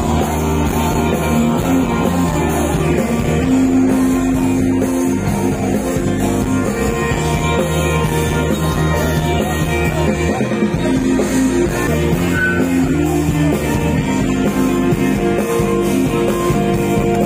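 Loud rock music with a singer and guitars.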